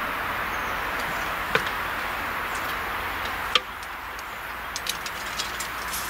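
Mechanical cable-pull drive of a level-crossing barrier working as the barriers are lowered: a steady running noise with a knock about a second and a half in and a louder clunk about three and a half seconds in, after which the running noise drops and a run of light ticks follows near the end.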